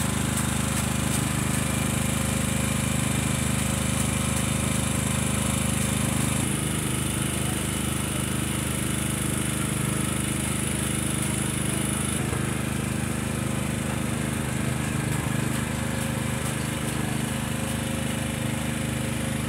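A small motor running steadily, a constant low hum with some hiss above it.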